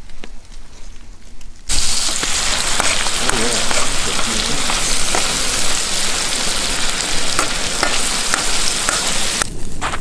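Asparagus and zucchini frying in oil in a wok, a steady sizzling hiss that starts suddenly about two seconds in. Near the end it gives way to quieter crackling.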